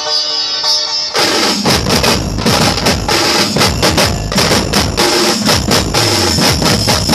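A held melody line plays alone. About a second in, a group of large double-headed barrel drums (dhols) comes in with fast, loud, driving strokes, and the melody carries on under them.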